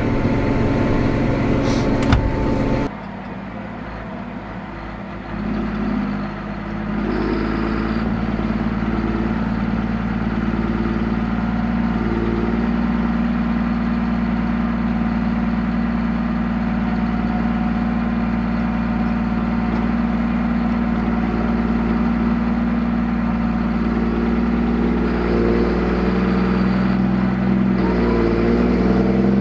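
John Deere 7230R tractor's diesel engine heard from inside the cab as a steady drone. It drops suddenly about three seconds in, climbs back up over the next few seconds as the revs come up, then runs steadily at working speed.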